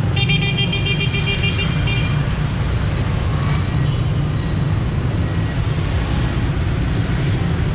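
Steady rumble of busy motorbike and car traffic, with a vehicle horn sounding for about two seconds at the start.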